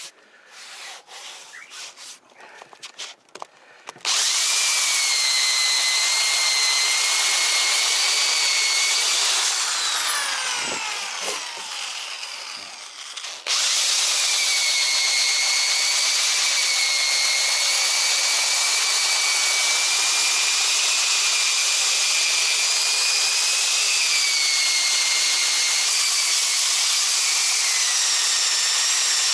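Homemade sanding pad on an electric drill, sanding an epoxy-coated fibreglass (FRP) boat hull. After a few handling clicks the drill starts about four seconds in and runs with a steady whine over the rasp of the abrasive. About ten seconds in it slows with a falling whine, then starts again at full speed about thirteen seconds in.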